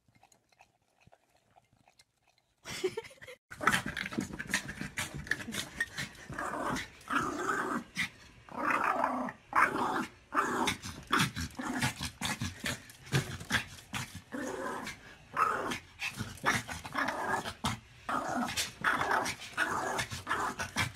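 Small dog growling in a long, continuous string of rough bursts, starting about three seconds in after a near-silent opening.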